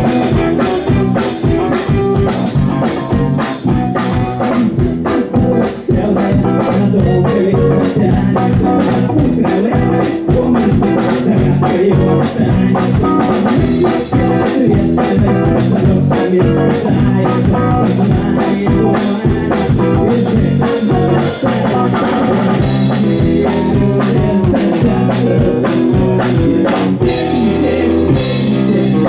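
Live band playing a rock song without vocals: guitar over a drum kit keeping a steady, driving beat.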